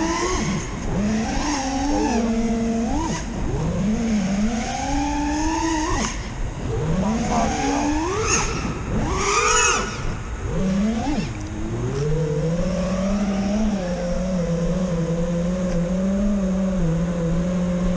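Brushless motors of a 5-inch FPV freestyle quadcopter (T-Motor Velox 2207 1950kv) whining. The pitch swoops up and down sharply with throttle punches and chops for the first ten seconds, then settles into a steadier low hum near the end.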